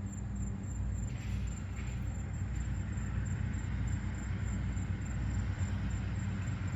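Steady low droning hum and rumble with a faint hiss over it.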